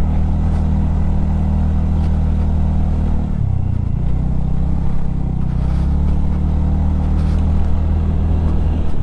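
Single-cylinder two-wheeler engine running while riding, with its pitch dipping and shifting about three seconds in, then running steady again.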